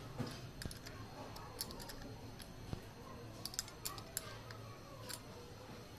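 Scattered small metallic clicks and taps as a stainless steel glass-railing clamp and its bolts are handled and tightened with a hand tool. A low steady hum runs underneath.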